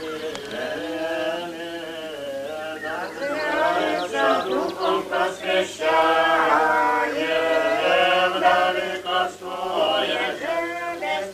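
A group of voices singing a slow Old Believer religious chant, with long held notes that move step by step in pitch.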